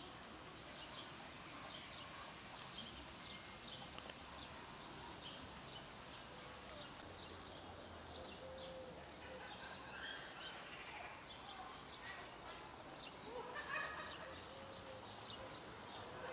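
Quiet outdoor ambience with small birds chirping in the background, now and then a short low cooing note.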